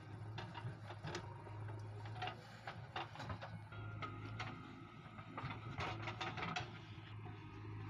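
Diesel engines of a JCB 3DX backhoe loader and an HMT tractor running steadily, with a series of knocks and clatters as the backhoe bucket digs earth and dumps it into the tractor trolley.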